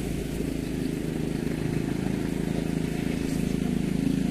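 A small combustion engine running steadily at an even speed.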